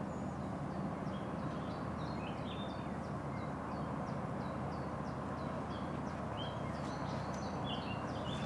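A songbird singing a regular run of short high notes, about two a second, turning into a busier phrase near the end, over a steady low hum.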